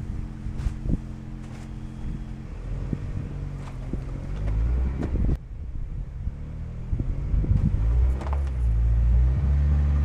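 Honda Fit's four-cylinder engine idling with a steady low hum while a snow brush scrapes across the snow-covered car in a few short strokes near the start. The low rumble grows heavier in the second half.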